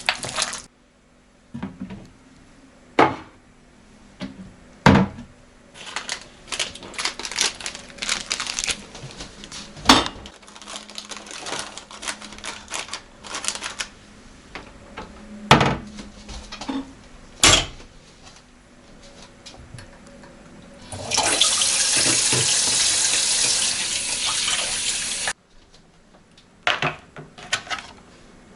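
Kitchen work: scattered knocks and clinks of dishes and utensils, then a tap running steadily for about four seconds and shut off abruptly.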